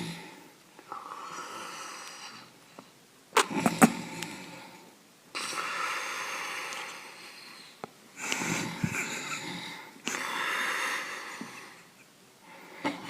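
A person snoring in sleep: a series of noisy breaths in and out, each lasting one to two seconds, with a sharper snort about three and a half seconds in.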